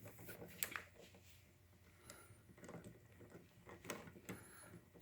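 Faint scattered clicks and taps of hand tools on the metal carburettor mounting bolts of a small Briggs & Stratton engine, in a quiet room.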